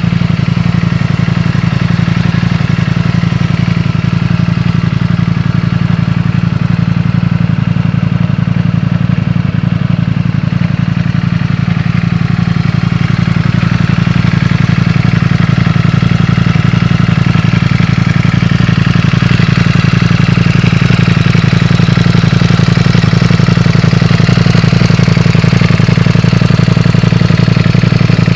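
Ducati Panigale V4's V4 engine idling steadily, growing a little louder from about halfway through.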